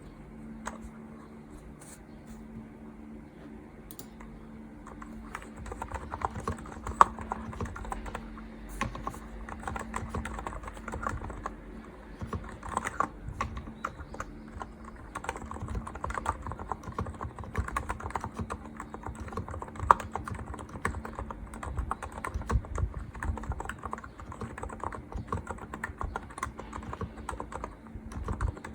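Typing on a Hansung GK868B (Hanmumu) electro-capacitive keyboard: a few scattered keystrokes at first, then fast continuous typing from about five seconds in. A steady low hum runs underneath.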